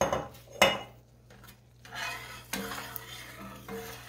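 Two sharp clinks of a utensil against a skillet, then from about two seconds in a spoon stirring and scraping thickening gravy around the pan in uneven strokes.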